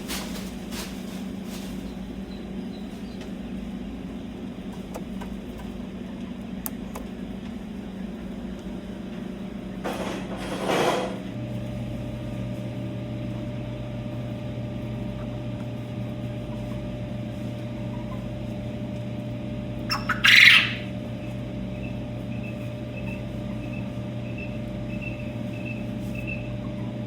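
Quail calling over a steady machine hum, with two short louder calls about ten and twenty seconds in and a run of faint, evenly spaced peeps near the end.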